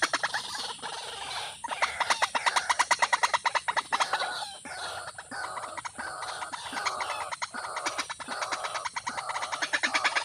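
Bird calling in a fast series of repeated notes, about seven a second, with a more varied, warbling stretch in the middle before the rapid notes return near the end.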